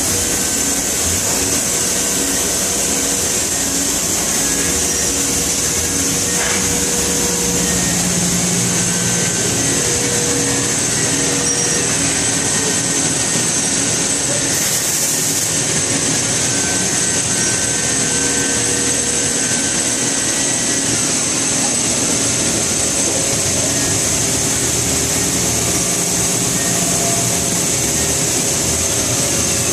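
Haas MDC500 CNC machining center running: a loud, steady hiss with faint humming tones that come and go.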